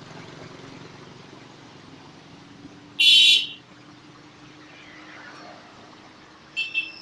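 Steady low hum of a vehicle engine, with one short, shrill, high-pitched sound about three seconds in, the loudest thing heard.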